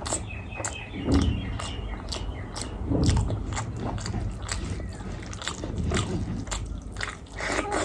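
Close-miked eating: chewing with frequent wet mouth clicks and lip smacks, several a second.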